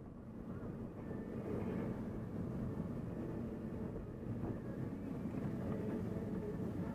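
Volvo S40 driving at low speed, its engine and road noise heard from inside the cabin as a steady low hum. The hum grows a little louder about a second in.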